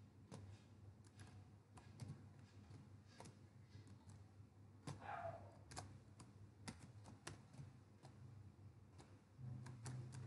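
Faint typing on a computer keyboard: scattered, irregular key clicks over a low steady hum.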